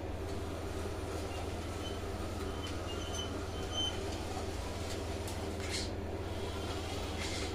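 Geared DC drive motor of a 1:16-scale RC forklift running steadily, turning the front axle through a GT2 timing belt as the model drives along.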